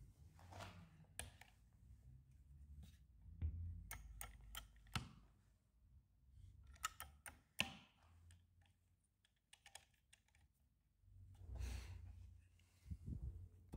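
Handling noise from a Festool Domino XL DF 700 EQ joiner: irregular clicks and taps of its fence and adjustment levers, with a few louder knocks as the tool is moved and set down on the bench.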